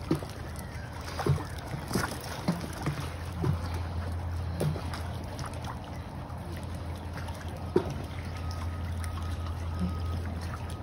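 Pool water sloshing and splashing as a man wades about and pushes an inflatable pool float, with scattered short splashes. A steady low hum runs underneath from about three seconds in.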